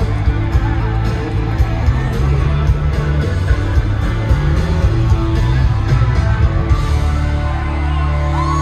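A live country-rock band playing loud in an arena, with a drum beat under electric guitar. About seven seconds in the drumming stops and a held chord rings on.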